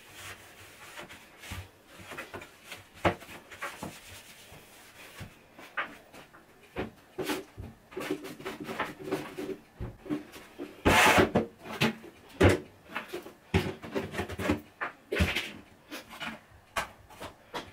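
Plastic toiletry bottles and other small items being handled and set down on a wooden counter: a run of separate knocks and clicks with bits of rubbing, thickest in a longer clatter about eleven seconds in.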